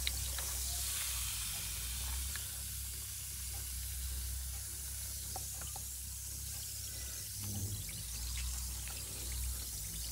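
Hands sloshing and splashing in a tub of water, over a steady high hiss of dissolving fizz bombs. Small clicks and drips come through now and then.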